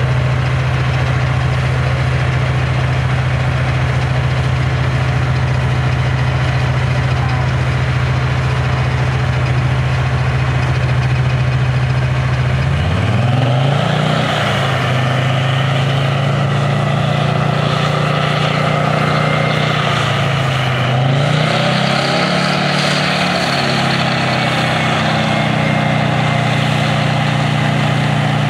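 Type 87 self-propelled anti-aircraft gun's V10 diesel engine idling steadily, then revving up about halfway in, its pitch rising and falling twice as the vehicle works.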